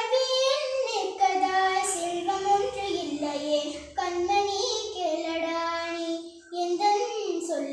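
A young girl singing solo, holding long notes that step up and down, in three phrases with short breaths between them.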